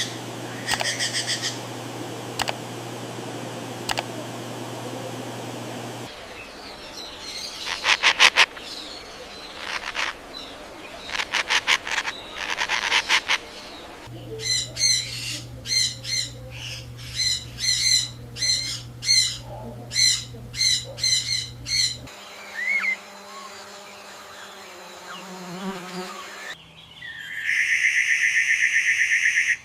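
Birds calling and chirping in a run of short segments that change abruptly. There are quick trills, then a series of repeated short calls, and near the end a loud, buzzy, sustained call. A steady low hum underlies some of the segments.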